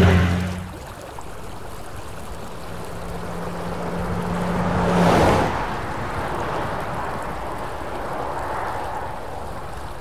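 River water flowing at a stony bank: an even wash of noise that swells briefly about five seconds in.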